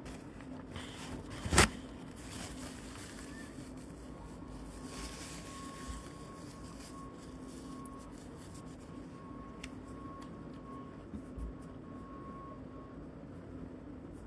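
Quiet room tone with a steady low hum. A single sharp click or knock comes about a second and a half in, and a few soft breathy hisses follow.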